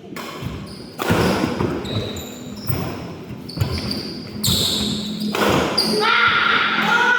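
Players' voices calling out over a badminton court in a large echoing hall, with a few sharp knocks from play.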